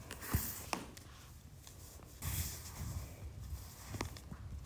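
Faint handling sounds from pointe shoes being tied on: soft rustling of the ribbons and satin, with a few light taps.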